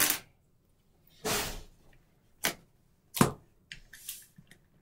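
A large cardboard box being handled: several sharp knocks and taps, with a couple of short scraping, rustling sounds of cardboard in between.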